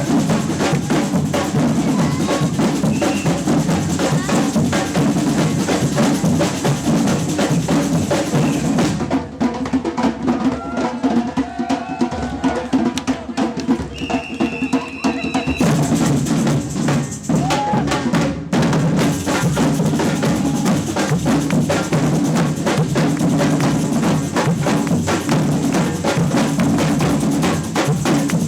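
Samba percussion band (batucada) playing a fast, dense drum groove. A third of the way in the deep drums drop out for a lighter break, and the full band comes back in about halfway through.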